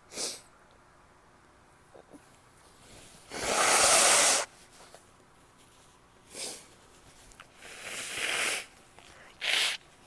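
A woman sneezing, with breathy gasps between sneezes: a short burst at the start, a loud noisy burst about a second long a third of the way in, then a rising, drawn-in breath and a sharp sneeze near the end.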